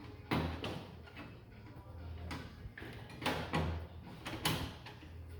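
Metal side cover of a desktop computer case being fitted and slid into place: several knocks and scrapes over a steady low hum.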